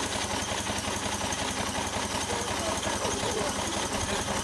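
Large live-steam model showman's engine running stationary under steam, with a rapid, steady exhaust beat over a hiss of steam.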